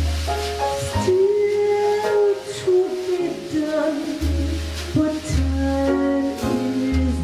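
A woman singing a slow ballad into a microphone, holding long notes, with piano accompaniment and sustained low bass notes underneath.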